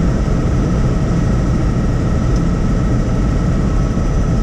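Helicopter in flight: steady rotor and engine noise, loudest at the low end, with a faint steady high whine above it.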